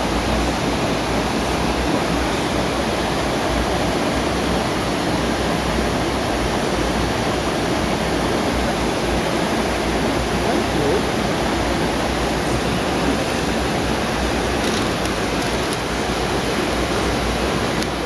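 Steady rush of a waterfall: an even, unbroken hiss of falling water.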